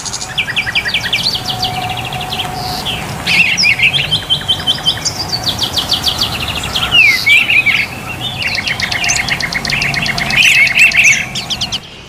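Songbirds singing: rapid trills of repeated short chirps and a few sweeping whistled notes, phrase after phrase.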